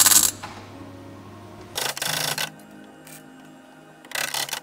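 MIG welder laying short tack welds on floor-pan sheet steel: a burst of crackling ends about a third of a second in, then two more bursts of about half a second each come at around two seconds and around four seconds. Quiet background music runs underneath.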